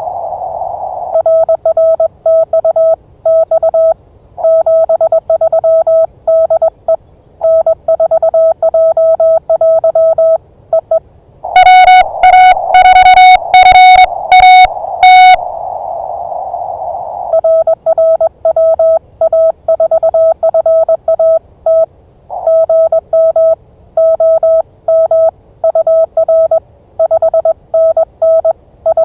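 Morse code (CW) from an amateur radio transceiver: a steady mid-pitched beep keyed on and off in dots and dashes. About twelve seconds in, a louder, slightly higher-pitched Morse signal sounds for about four seconds, with band hiss in the pauses around it.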